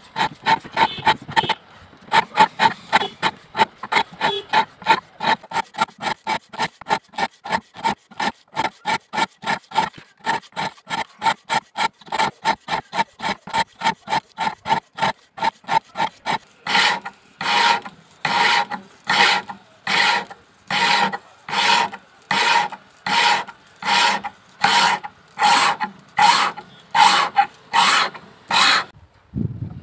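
Hand file stroking back and forth across a leaf-spring steel knife blade to shape its bevel. Quick short strokes, about three a second, give way about halfway through to slower, longer strokes, about one and a half a second, which stop shortly before the end.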